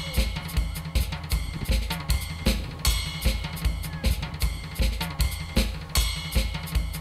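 Background music: a fast, steady drum-kit beat with kick drum, snare and cymbals over a low bass line.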